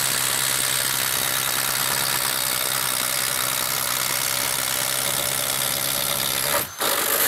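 Milwaukee cordless impact driver hammering steadily under load as it drives a 1.5-inch spade bit through a wooden board. It pauses briefly near the end, then runs again and cuts off.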